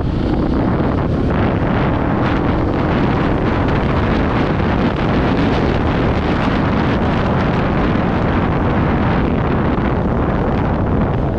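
Heavy wind buffeting on the microphone over the steady drone of a KTM 690 Enduro's single-cylinder engine running at riding speed.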